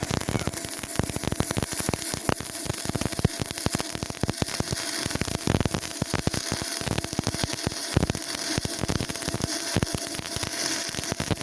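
Stick (SMAW) welding arc crackling steadily as a bead is run, a dense run of sharp pops over a frying hiss.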